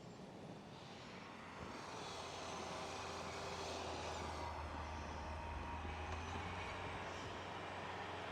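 Kubota tractor engine running a rear snowblower, a steady mechanical drone with a low hum that grows a little louder about one and a half seconds in.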